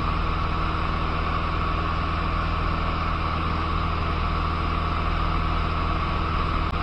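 Cessna 150's four-cylinder Continental O-200 engine and propeller running steadily at cruise, heard from inside the cabin together with the rush of air past the airframe.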